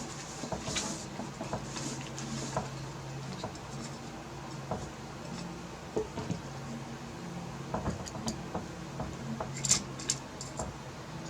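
Scattered small clicks and knocks of graphics card parts being handled and fitted back together, a few sharper clicks near the end, over a steady low hum.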